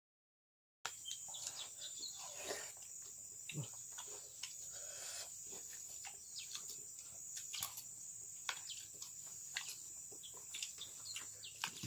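Steady high-pitched drone of insects, with many light, scattered clicks of a spoon against an enamel plate during eating. The sound cuts in about a second in, after a moment of total silence.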